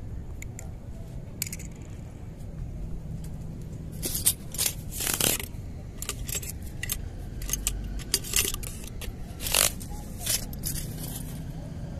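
Scraping and clicking of hands handling fishing gear and a white plastic tube, in a run of short, sharp scrapes from about four seconds in.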